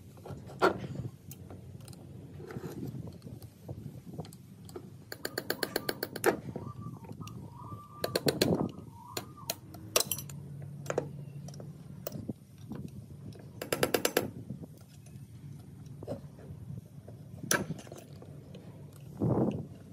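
Hand-tool work on metal parts: scattered clicks and knocks, with two bursts of rapid, even clicking like a ratchet being worked, one about five seconds in and one about fourteen seconds in.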